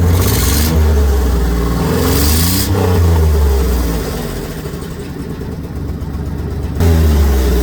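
Ford E250 van's 4.2-litre V6 revved up in three blips, dropping back toward idle in between, with a longer lower stretch before the last rev near the end. The engine runs erratically with a misfire on cylinder 1 and blows water out the exhaust, which the mechanic takes as a sign that one of the cylinder heads may be cracked.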